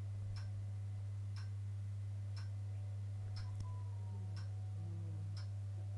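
Clock ticking once a second over a steady low hum.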